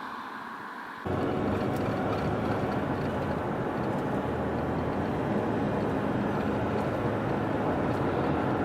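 Steady engine and road noise of a vehicle on the move, with a low, even hum. It cuts in louder about a second in.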